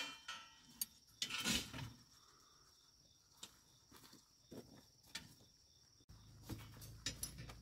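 Steel rebar and tie wire being handled and twisted at the crossings of a rebar cage: sparse faint metallic clicks and scrapes, with one louder scrape just over a second in.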